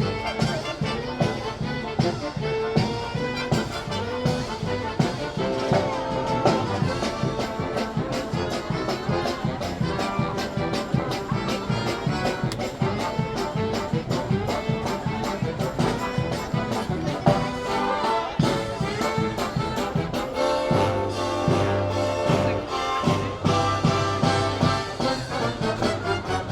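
Brass band playing live: trumpets and trombones carrying the tune over a steady drum beat.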